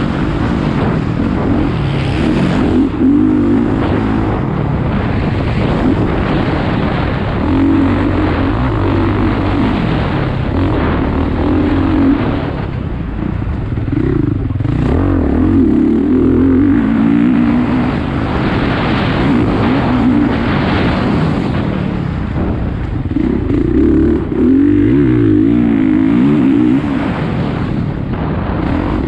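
A vehicle engine being driven hard around a track, its pitch rising and falling again and again, over a steady rushing noise.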